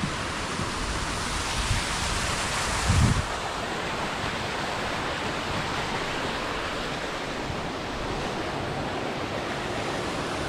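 Steady rushing of stream water flowing beneath a swing bridge, with one low thump about three seconds in.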